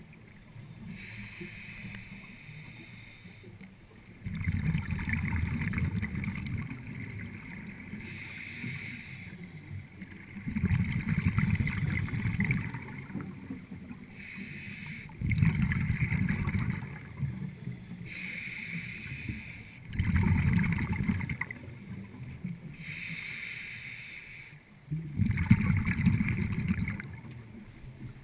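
Scuba diver breathing through a regulator underwater: a repeating cycle of a hissing inhale and a bubbling exhale, a breath about every four to five seconds.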